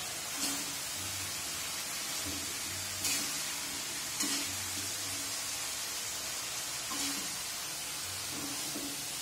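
Chayote and cabbage stir-frying without water in a metal wok, a steady sizzle, with a metal spatula stirring and knocking against the pan a few times.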